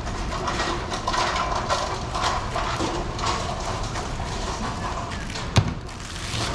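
A cleaver shaving the skin off a pineapple in a series of quick cutting strokes, then a sharp knock about five and a half seconds in as the knife is laid down on the cutting board.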